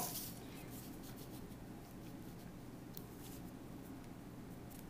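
Faint rubbing and light taps of a plastic protractor being slid and set in place on a sheet of paper, with a few soft clicks.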